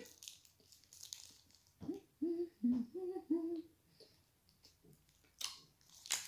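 A woman humming a run of four or five short closed-mouth "mmm"s about two seconds in while chewing chocolate, with a few short crackles before and after.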